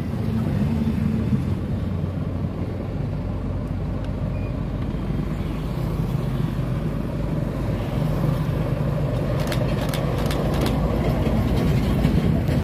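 Road traffic: a motorcycle's engine passing close at first, then vehicle engines, including an approaching truck, growing louder toward the end. A cluster of sharp clicks or rattles comes about ten seconds in.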